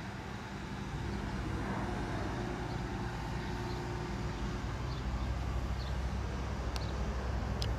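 Steady outdoor street noise, mostly a low rumble of road traffic, with two short sharp clicks near the end.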